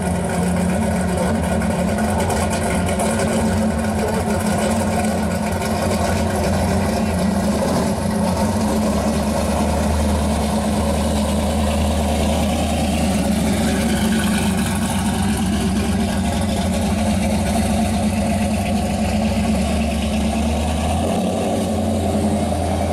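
Hot-rodded Chevy II Nova's engine and exhaust idling steadily, then pulling away at low speed, with a shift in the low rumble near the end.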